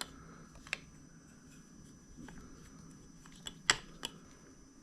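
A few light clicks and taps of small plastic parts being handled while a Snap-on work light is reassembled, the loudest a little after three seconds in.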